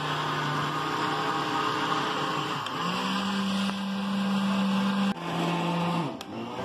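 Countertop glass-jar blender running, whirring as it blends eggs, sugar and oil into a liquid batter. Its motor hum steps up in pitch about three seconds in, drops back about two seconds later, and the blender stops near the end.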